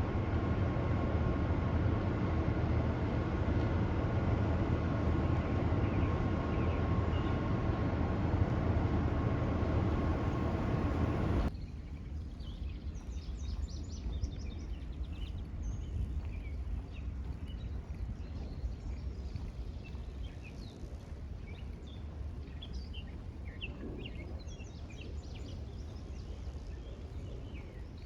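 A loud, steady rumbling noise with a few faint steady tones in it cuts off abruptly about eleven seconds in. After it comes quieter outdoor ambience with birds chirping on and off.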